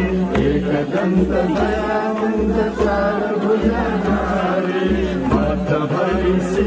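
Hindu devotional aarti bhajan chanted by a group, led by a man singing into an amplified microphone.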